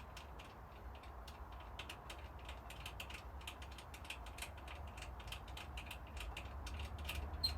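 A hand-worked mechanism clicking rapidly and unevenly, about four or five clicks a second, like a ratchet or crank being turned, over a low steady hum.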